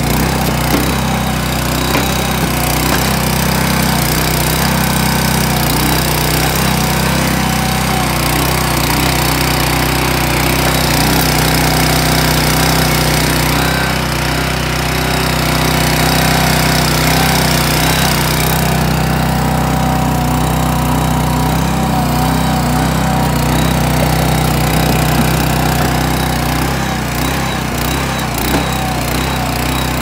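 Small engine of a portable mini backhoe running steadily under hydraulic load while its control levers work the boom and bucket to dig a trench. A higher hissing layer eases off about two-thirds of the way through.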